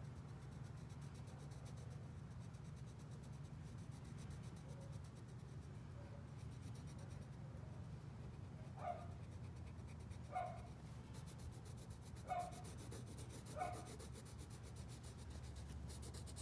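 Brown colored pencil scratching on paper as it colours in a drawing. Four short, slightly louder sounds come about a second and a half apart in the second half.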